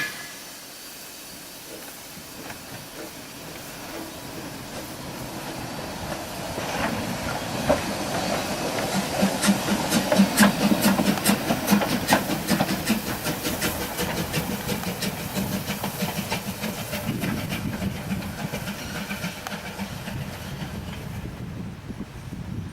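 Metre-gauge steam train drawing near and running past, with steam hissing and wheels clicking over rail joints. It is loudest about ten seconds in, then fades slowly. A single sharp knock comes right at the start.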